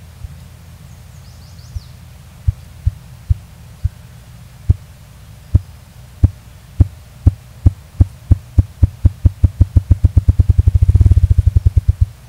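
A male ruffed grouse drumming: deep thuds from its beating wings, at first about a second apart, speeding up steadily into a rapid whir that stops near the end. This accelerating drumming is its courtship and territorial display.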